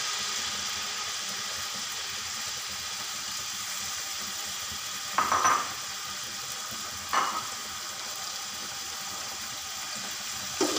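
Steady hiss of a cup of cooking oil heating in an aluminium pot on a gas stove, with two short clatters about five and seven seconds in.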